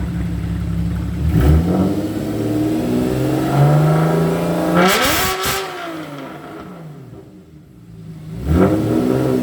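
Porsche 911 Carrera S (991.1) 3.8-litre flat-six being revved: idling, a short blip about a second and a half in, then the revs climb for several seconds to a sharp peak and fall away, with another quick blip near the end.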